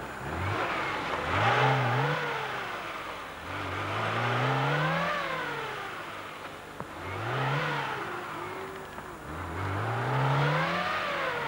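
Lada Niva's four-cylinder engine revving hard in bursts as it drives through deep mud on an off-road course. The engine note climbs and falls back about five times.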